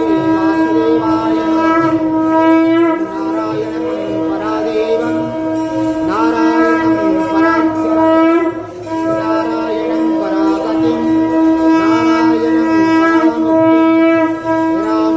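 A wind instrument plays a wavering melody over a steady held drone note, with a brief break in the drone about nine seconds in.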